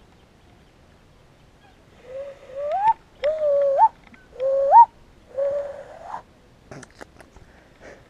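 Hand whistle blown through cupped hands: four whistled notes about a second apart, each held low and then sliding up in pitch at its end, the last one staying low.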